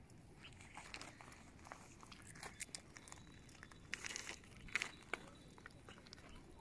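Faint scattered clicks and rustling crackles, with a short louder flurry about four seconds in and another just before five.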